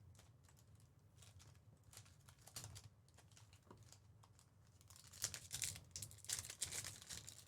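Trading-card packs being torn open and their wrappers crinkled. It is faint and sparse at first, then busier from about five seconds in.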